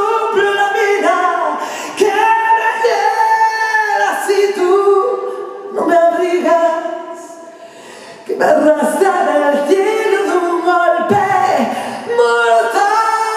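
A woman singing a Spanish pop song live through a PA, her voice carrying the melody with little or no instrumental backing. The singing drops away briefly a little past the middle, then comes back at full strength.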